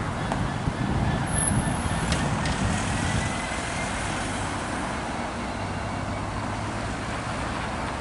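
Diesel engine of a GB Railfreight Class 66 locomotive running with a steady low rumble, a low hum settling in about halfway, as the train crawls over a steel bridge.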